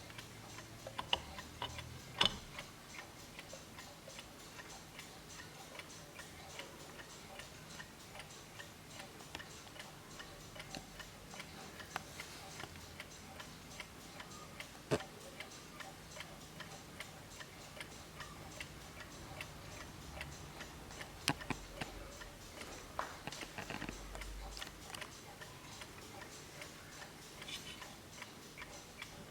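Vintage Junghans Max Bill 8-day mechanical wall clock ticking steadily, with a few louder clicks here and there.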